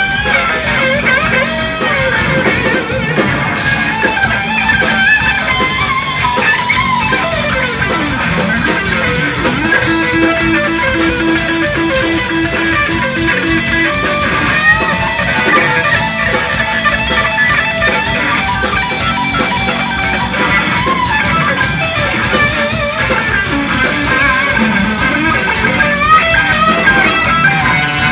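Live rock band playing an instrumental passage led by an electric guitar solo over drums, the guitar bending and sliding between notes. About a third of the way through, the guitar repeats one note quickly for several seconds.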